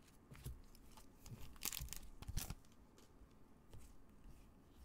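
Topps trading cards handled in nitrile-gloved hands: short, faint slides and scrapes as cards are pushed off the stack one over another, the loudest few about two seconds in.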